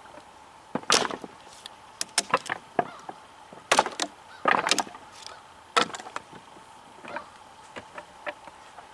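Large cKc Voyager chopping knife striking a 2x4 with light wrist-only chops: about a dozen sharp wooden chops, some in quick clusters, at irregular intervals.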